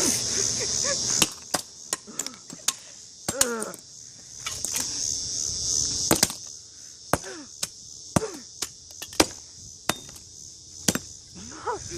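A drumstick striking an alarm clock on concrete again and again, about fifteen sharp, irregular knocks. Insects chirr steadily high-pitched in the background.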